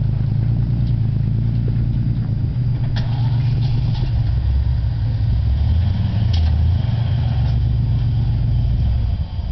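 Off-road vehicle's engine running at low revs as it crawls over rocks, a steady low drone that drops lower about halfway through, with a few short sharp clicks.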